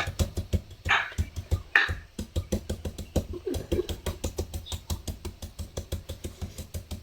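Knife chopping rapidly into a green papaya to shred it for som tam, a fast, even run of knocks at about five strokes a second.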